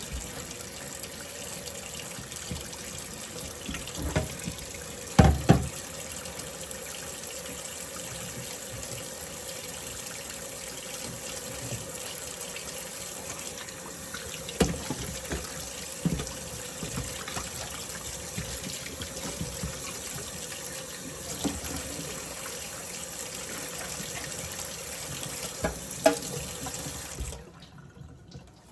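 Kitchen sink tap running steadily while the sink is rinsed out, with a few knocks and clunks in the sink, the loudest two about five seconds in. The water is shut off abruptly about a second before the end.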